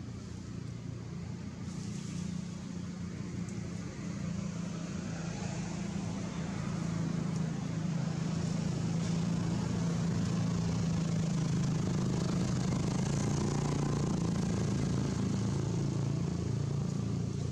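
Steady low engine hum of an unseen motor vehicle, growing louder over the first several seconds and then holding steady.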